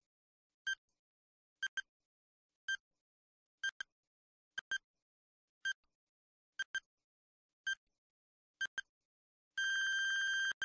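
Electronic countdown-timer beeps: a short double pip about once a second, nine times, then one long steady beep lasting about a second near the end as the timer reaches zero, signalling that time is up.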